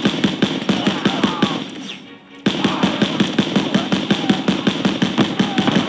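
Video-game machine-gun fire in rapid, even bursts of about seven shots a second. It cuts out abruptly for about half a second near two seconds in, then starts again.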